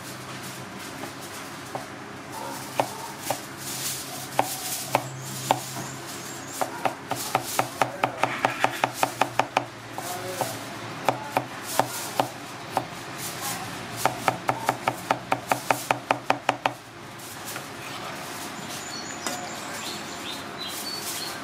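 Cleaver chopping on a plastic cutting board: a few scattered chops, then three quick runs of about four to five chops a second.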